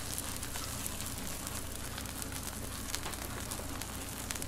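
Oil sizzling and crackling steadily on a hot griddle, with a low steady hum underneath.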